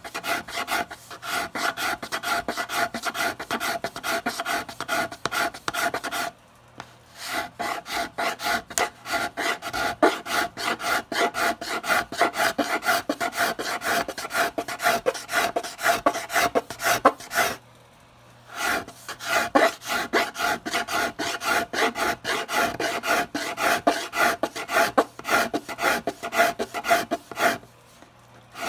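Flat steel blade scraping a guitar's inlaid rosette down flush with the top: a rasping scrape in rapid short strokes. It pauses briefly three times.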